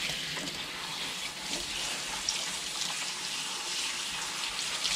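Kitchen tap running steadily into a stainless steel bowl of spinach leaves as they are rinsed by hand.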